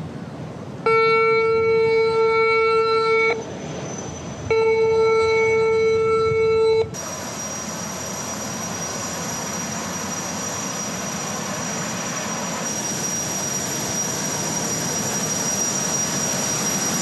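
High-speed passenger ferry's horn sounding two long blasts of about two and a half seconds each. From about seven seconds in, a steady rush with a thin high whine follows as the ferry comes in to the pier, growing slowly louder.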